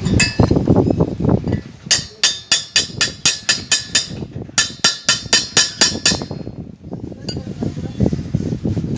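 A chipping hammer knocking slag off a weld, sharp metallic strikes about five a second in two quick runs with a short pause between, over a low rumble.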